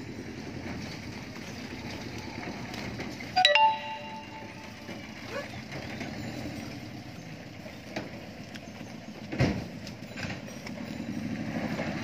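Steady outdoor background hum with traffic-like noise. About three and a half seconds in, a sharp knock rings briefly with a bell-like tone, and near nine and a half seconds comes a dull thump.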